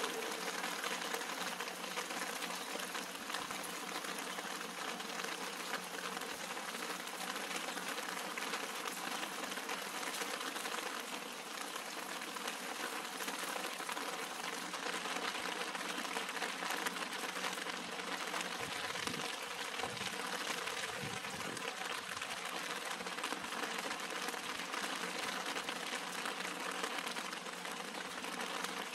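Steady rain falling on leafy potted plants and flowers, a dense even patter of countless small drops.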